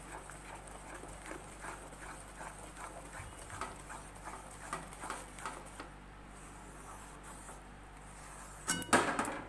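A spatula stirring and scraping a thick besan and sugar-syrup batter in a metal pan, in a steady run of short strokes. A loud clatter comes near the end.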